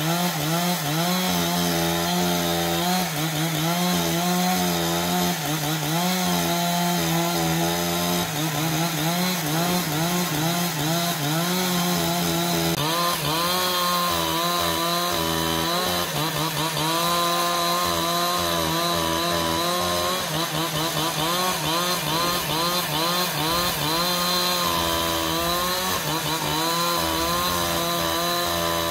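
A power saw runs continuously as it cuts wood, its pitch wavering up and down under the load. The sound changes abruptly about 13 seconds in.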